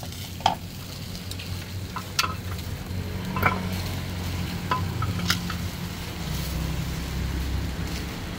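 Chicken skewers sizzling over a charcoal grill, with a handful of sharp clicks and clinks of utensils and pots and a steady low hum underneath.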